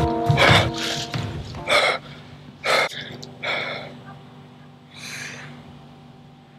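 A young man gasping for breath, out of breath from running: about six heavy breaths roughly a second apart, growing weaker as he recovers. Underneath is a low, steady music drone, and higher music tones stop within the first second.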